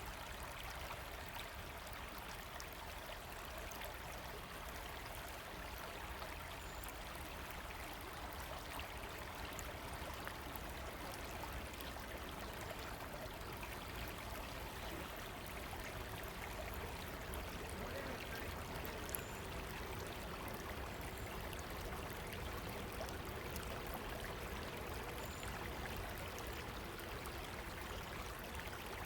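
River water running, a steady, continuous rush without pauses.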